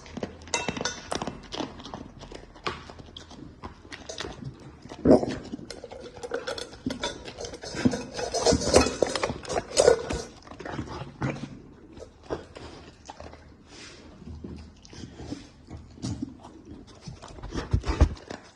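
Dog eating from a bowl: irregular clicking and clattering of chewing and the bowl, louder in clusters.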